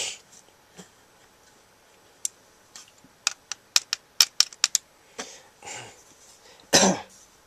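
A run of about ten sharp plastic clicks from a toy Sonic Screwdriver being handled, its spring-loaded parts and buttons clicking, followed by softer handling rustles and a louder short burst near the end.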